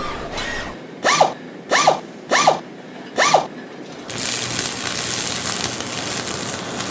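Nylon cable ties zipped tight four times in quick succession, each a short zipping rattle whose pitch rises and falls with the pull. In the last few seconds comes a longer, steady rasping noise.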